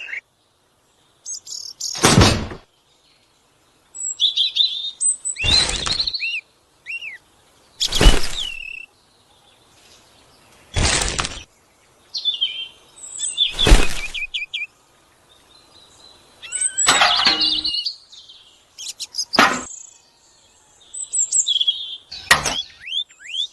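Birds chirping and whistling, broken every two to three seconds by a short, loud knock, about eight in all.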